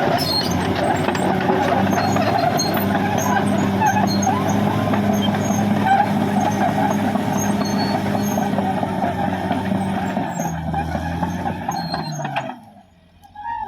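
Caterpillar D6R XL bulldozer at work: the diesel engine runs steadily under a dense noisy clatter. Near the end the engine note drops slightly, then the sound cuts off abruptly.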